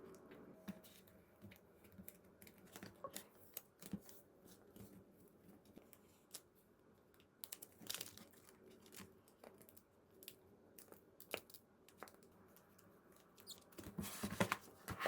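Faint rustling and crinkling of plastic packaging and card sleeves, with scattered small clicks and taps from handling small items.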